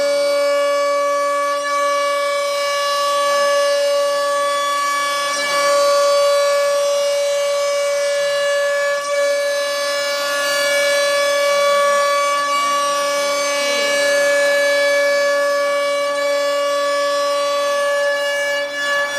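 CNC router spindle running at constant speed with a steady high-pitched whine while engraving, with cutting noise underneath; a lower hum drops away about six seconds in.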